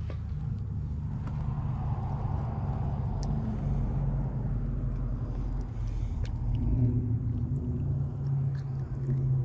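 A motor vehicle's engine running with a steady low rumble, swelling a little about one to three seconds in.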